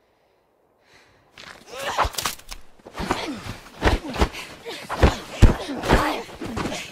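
Hand-to-hand fight sound in a film: after a near-silent pause, a rapid series of heavy body blows and thuds with scuffling and short grunts, starting about a second and a half in.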